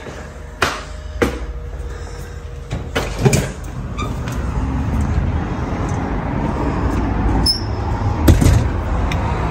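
A door being opened and gone through: a few clunks and knocks of the door and its handle, over a low rumble that grows louder from about halfway.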